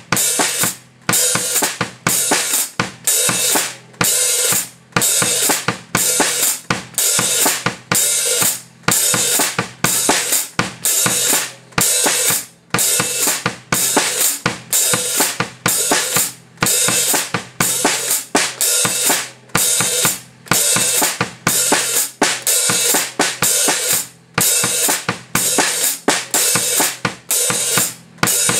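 Drum kit played in a steady groove: bass drum and snare strikes under a continuous hi-hat and cymbal wash, with the hi-hat worked by its foot pedal. The cymbal wash cuts off briefly at regular intervals throughout.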